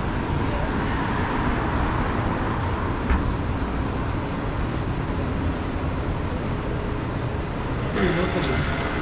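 Steady road traffic noise of a city street, with a short sharp tick about three seconds in.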